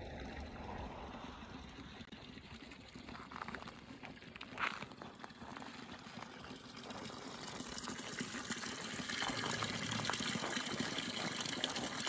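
Spring fountain's spout running a thin stream of water into its stone basin, a faint steady splashing that grows louder toward the end.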